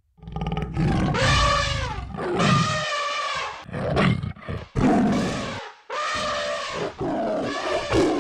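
Monster roars, one after another: about seven loud, drawn-out roars, each about a second long, with short breaks between them.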